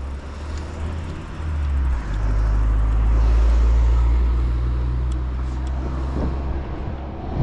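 Steady low rumble of wind buffeting the microphone and road noise during a bicycle ride, swelling about two seconds in and easing off near the end.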